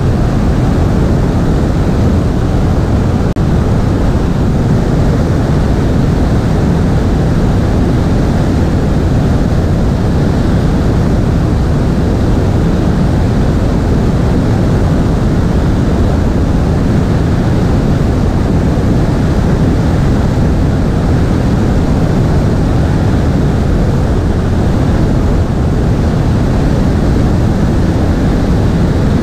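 Loud, steady rush of airflow and engine-propeller noise on a camera mounted on a Piper Cherokee's stabilator.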